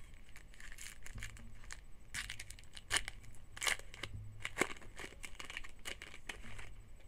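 A trading-card pack's wrapper being torn open and crinkled by hand: irregular crackling and tearing, with a few sharper snaps in the middle.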